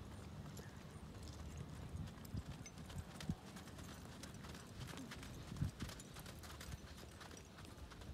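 Horse walking on soft arena dirt: faint, muffled hoofbeats over a low steady rumble, with two louder thuds about three and five and a half seconds in.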